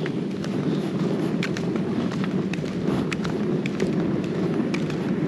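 Steady rain falling, with scattered sharp ticks of drops striking close by.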